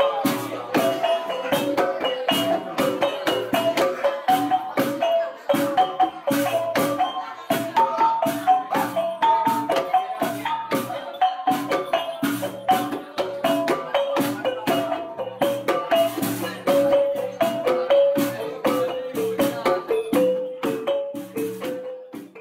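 Iban taboh gong music: a row of small kettle gongs (engkerumong) struck with sticks plays a fast, repeating melody over strokes of a large hand-held gong and a hand drum.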